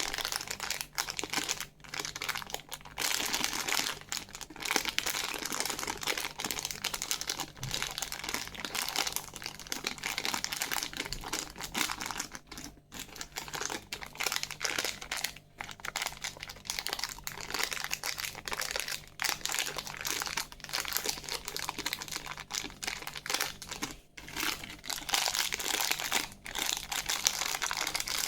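Plastic candy wrappers crinkling and rustling as they are handled, in a dense crackle with brief pauses.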